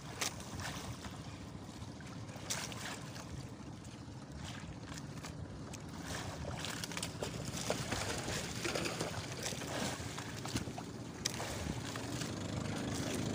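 Wind and sea wash around a wooden outrigger fishing boat, with scattered light knocks as a fisherman hauls in a handline. Toward the end the sound grows louder as a hooked skipjack tuna splashes at the surface beside the hull.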